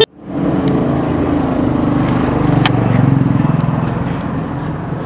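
A motor vehicle engine running close by, swelling to a peak about halfway through and then easing off, with a single sharp click near the loudest point.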